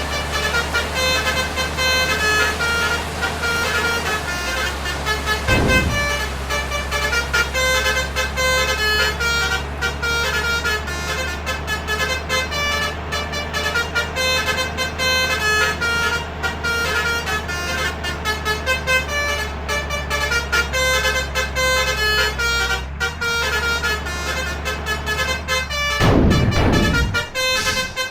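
Basuri telolet bus horn, a multi-tone trumpet horn, playing a tune of short stepped notes again and again over the steady low drone of the bus engine. A brief louder rush comes near the end.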